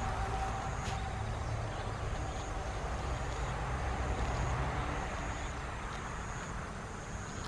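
Road traffic passing: a steady low rumble with a vehicle's engine hum that fades away over the first five seconds.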